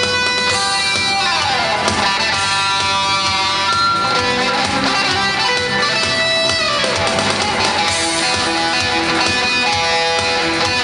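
Electric guitar playing a lead part over a rock backing track with a steady beat. Notes are held and change pitch throughout, and there are two sweeping, falling washes in the sound.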